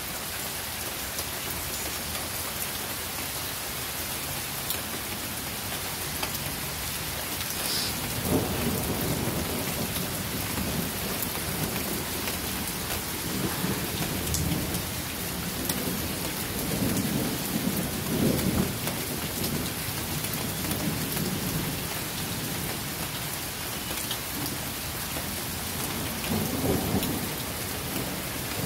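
Thunderstorm: steady rain hissing down, with low rumbles of thunder swelling and fading three times.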